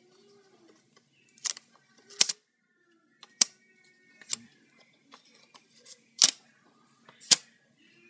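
About six sharp clicks and taps, a second or so apart, from fingers working the plastic pull-tab flaps out of a 27-inch iMac's memory slots.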